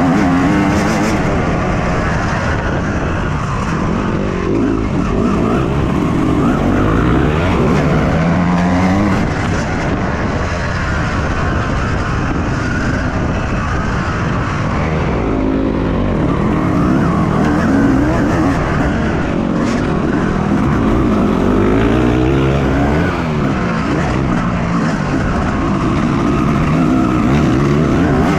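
Yamaha YZ250 two-stroke motocross engine being ridden hard, revving up and down. Its pitch repeatedly climbs and drops as the rider accelerates and shifts gears.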